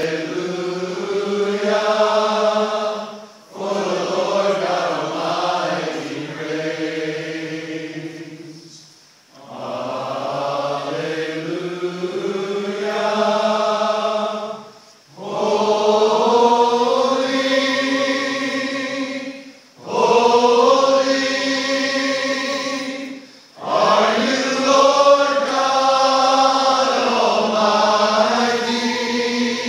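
A congregation of men singing a worship song together in long phrases, with a short pause between lines every four to six seconds.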